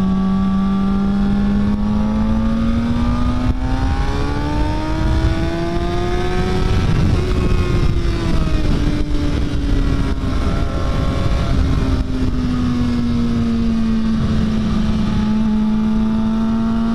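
A sport motorcycle's engine running under way with wind rushing over the microphone. Its revs climb for about seven seconds, ease back, and then hold fairly steady.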